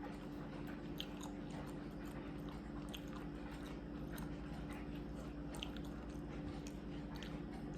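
A person chewing and biting food, with small scattered crunches and mouth clicks over a steady low hum.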